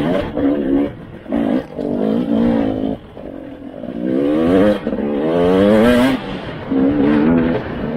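Dirt bike engine revving on and off the throttle in short bursts, with two longer pulls rising in pitch between about four and six seconds in.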